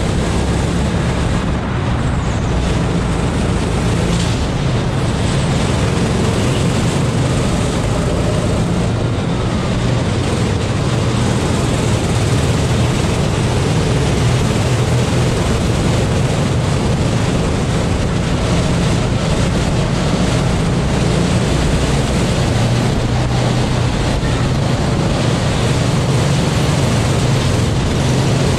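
Kart engine running at racing speed, recorded onboard, its pitch shifting a little as the kart goes through the laps, with wind buffeting the microphone.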